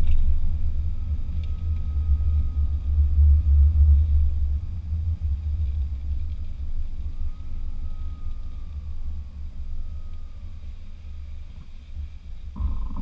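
Land Rover Discovery driving across soft dune sand, heard from inside the cabin as a deep, steady rumble that is loudest about four seconds in and eases off toward the end.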